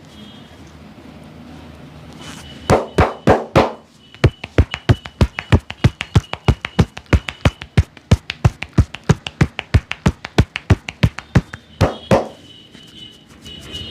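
A barber's hands slapping in a percussive massage. Four heavier slaps come about three seconds in, then a fast, even run of sharp slaps at about four or five a second for some seven seconds, and two more near the end.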